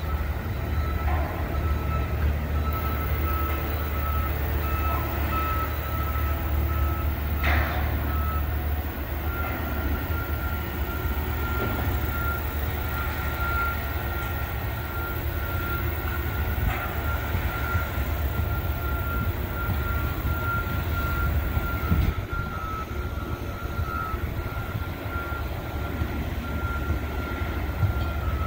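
A construction vehicle's reversing alarm beeping over a steady low rumble of site machinery, with one short sharp knock about seven seconds in.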